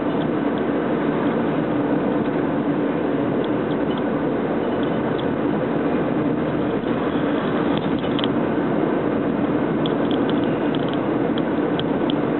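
Steady engine and tyre noise heard from inside a moving car's cabin, a constant hum with a few faint ticks from interior rattles.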